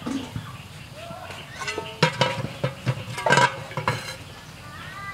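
Metal cookware clinking and knocking several times, with short pitched sounds in between.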